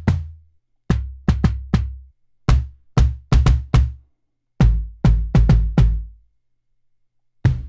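Maschine 2.0 kick drum synth played from a pad in short runs of four to six hits, with brief pauses between runs. Each hit is a sharp click with a low booming tail. The kick engine is switched between runs, so the tone changes from run to run.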